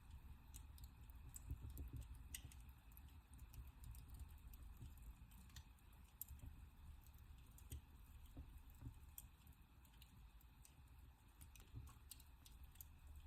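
Wood fire crackling in a fireplace: faint, irregular snaps and pops over a low steady rumble of the flames.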